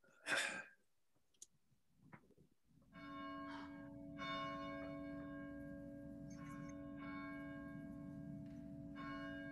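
A bell tolling, struck about three times roughly three seconds apart from about three seconds in, its ringing tones sustaining steadily between strikes. A short burst of noise comes just after the start, before the bell.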